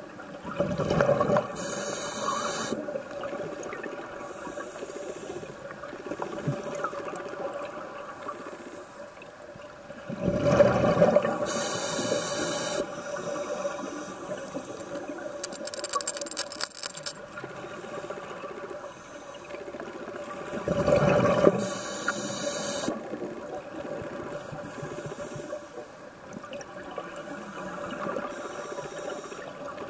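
Scuba diver breathing through a regulator underwater: three bursts of bubbling exhalation about ten seconds apart, each ending in a hiss, with a quieter wash of water between.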